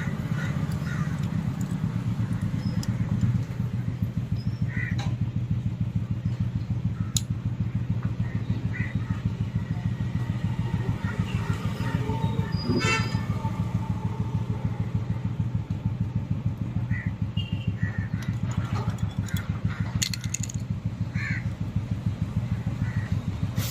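A small engine running at a steady idle, its low, fast pulsing unbroken throughout. Occasional faint chirps sound over it, with one brief rising call about halfway through.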